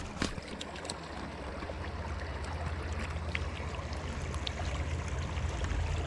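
Shallow stream running over stones, a steady rushing with a low rumble underneath and a few faint clicks.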